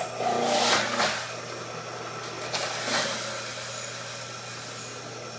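Champion masticating juicer's motor running steadily while cut produce is pushed down the feed chute and ground, with louder grinding surges about half a second in and again near three seconds.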